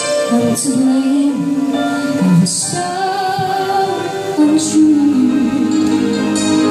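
A woman singing live into a handheld microphone over band accompaniment, carried by the PA system.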